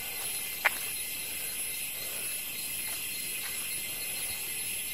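Steady high-pitched insect chorus of tropical forest, with one sharp click about two-thirds of a second in and a couple of faint ticks later.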